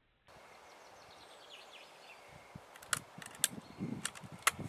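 Open-air background hiss with a few faint bird chirps, then a handful of sharp clicks and low knocks from about three seconds in.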